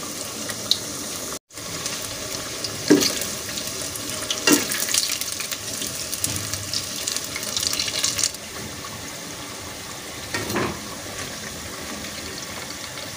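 Potato pinwheel samosas sizzling steadily as they deep-fry in hot oil, with a few knocks and scrapes of a steel ladle against the metal pot as they are stirred.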